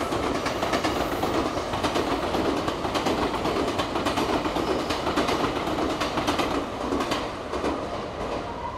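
Electric commuter train passing close by, its wheels clattering over the rail joints with a steady run of clicks; the sound fades toward the end as the last cars go by.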